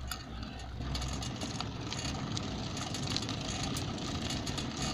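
Steady road and wind noise from riding a bicycle on pavement, with scattered light clicks and rattles.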